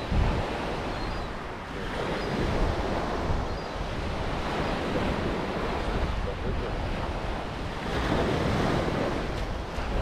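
Wind buffeting the microphone over the steady wash of sea waves breaking on a shingle beach.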